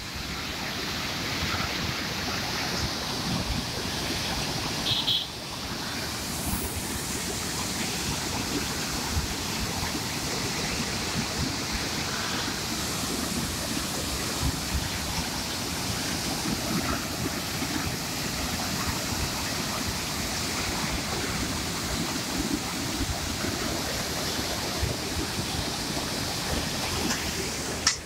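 Turbulent, silt-laden river water pouring through a barrage sluice gate: a steady, dense rush of churning whitewater.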